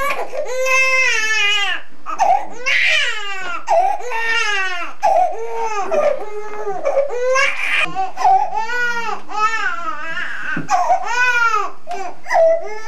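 Newborn baby crying hard: a string of wails, each rising then falling in pitch, about one a second.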